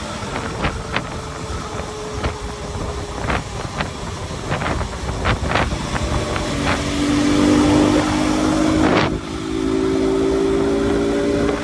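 Sport motorcycle engine running at road speed with wind rushing past a helmet-mounted phone. From about six seconds in the engine pulls harder and its note rises and gets louder. It breaks off briefly near nine seconds, then climbs again, with a few sharp ticks scattered through.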